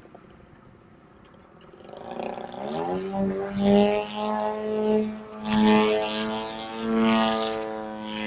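Radio-controlled aerobatic propeller plane flying overhead: its motor and propeller note comes in about two seconds in, rising in pitch, then holds a steady tone that swells louder and softer as the plane manoeuvres.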